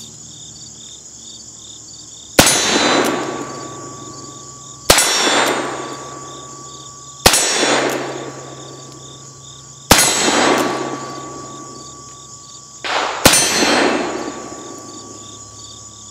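Five single shots from a Remington New Model Army cartridge conversion revolver in .44-40 firing black powder cartridges, spaced roughly two and a half seconds apart. Each shot is followed by the steel target ringing with a clear steady tone that carries on until the next shot.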